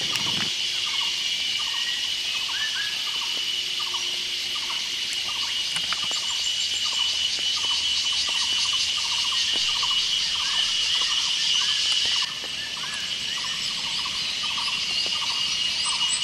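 Steady, high-pitched insect chorus, with a short lower call repeating about twice a second; the sound dips abruptly about twelve seconds in.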